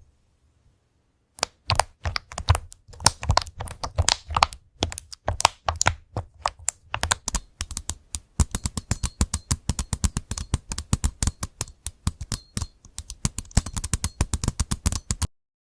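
Typing on a computer keyboard: a string of sharp key clicks. It starts after a second and a half of silence, goes unevenly at first, then turns into fast, steady typing about halfway through, and stops just before the end.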